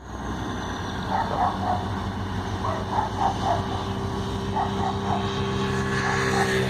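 EMD SD40T-2 diesel-electric locomotive's 16-cylinder two-stroke engine running with a steady drone. A dog barks in several short runs of two or three barks over it.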